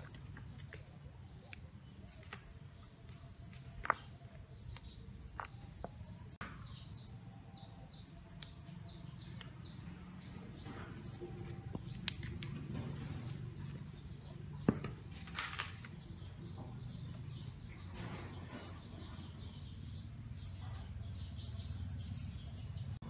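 Yardlong beans snapped by hand, giving occasional sharp crisp snaps, over a low steady rumble. A bird chirps rapidly and repeatedly in the background through most of the stretch.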